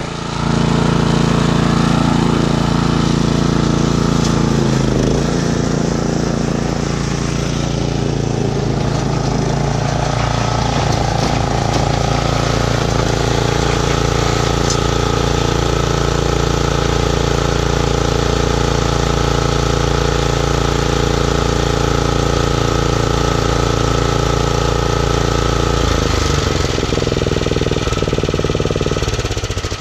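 Gas backpack leaf blower engine idling steadily, its pitch shifting slightly about five seconds in and again near the end.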